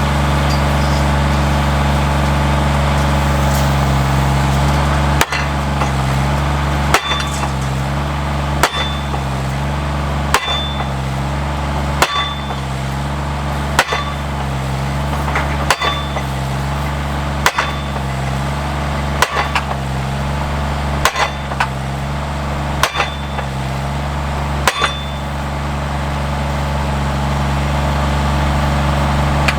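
Hydraulic post driver with its engine running steadily and its hammer striking a fence post about every 1.7 seconds, a dozen ringing metallic clangs in a row. The engine's note shifts with each stroke as the hammer is lifted and dropped.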